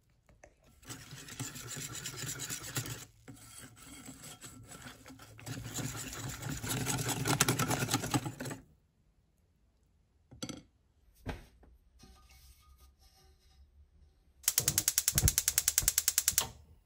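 A wire whisk beating crepe batter in a ceramic bowl, a rapid scraping and clattering of wires against the bowl for about eight seconds. Then come a couple of light knocks, and near the end the fast, even clicking of a gas hob's spark igniter, lasting about two seconds.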